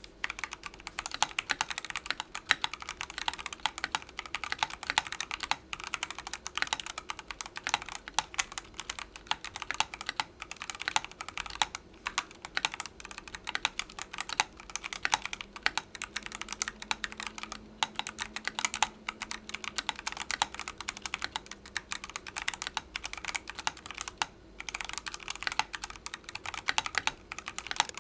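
Continuous fast typing on a mechanical keyboard fitted with C3 Equalz x TKC Kiwi tactile switches. The key presses and their returns make a dense stream of clicks, with a brief pause a little before the end.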